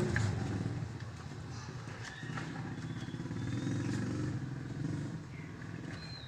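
A motorcycle engine running, its note wavering and swelling a little in the middle, with a few light clicks.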